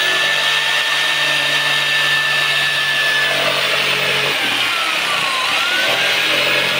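Handheld corded electric jigsaw running and cutting a panel, its motor whining at a steady pitch, then dropping in pitch from about three and a half seconds in as the blade bites and climbing back near the end.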